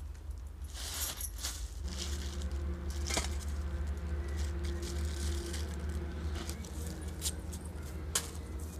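Plastic sack rustling and crinkling as a whole fish is pulled out and laid on a steel plate, with bangles clinking on the wrist. Sharp clinks against the metal plate come about three seconds in and near the end, over a steady low rumble.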